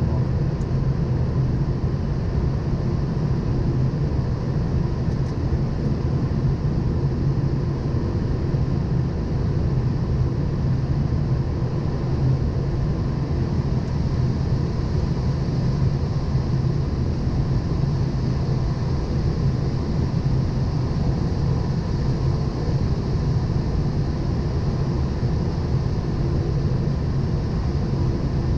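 Steady flight-deck noise of a Boeing 777 descending on approach: a constant low rumble with a fainter hiss above it, unchanging throughout.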